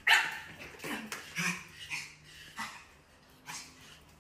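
Small fluffy dog giving a series of short yips and barks, about five, a second or so apart, the first the loudest and the rest fading.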